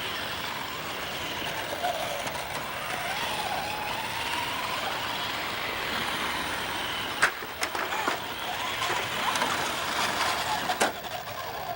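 Small electric motors of remote-control toy cars whining, their pitch wavering up and down as they are driven, with a few sharp knocks about seven seconds in and again near the end.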